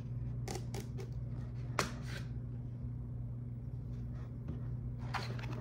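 Cardboard box being handled and its seal slit with a small handheld cutter: a few scattered clicks and scrapes, the sharpest about two seconds in, over a steady low hum.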